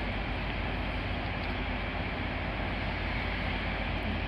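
Steady drone of trains standing at station platforms with their engines running: an even low hum beneath a constant hiss, with no change throughout.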